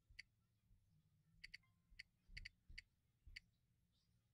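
Faint, sharp clicks as a finger taps the touchscreen of a Getac T800 rugged tablet: about eight taps, several in quick pairs.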